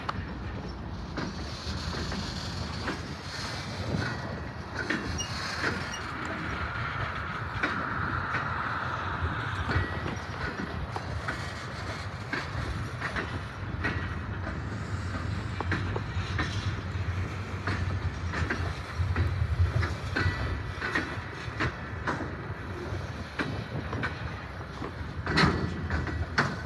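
Freight train boxcars rolling past, the wheels clicking over the rail joints over a steady rumble, with a louder clatter near the end.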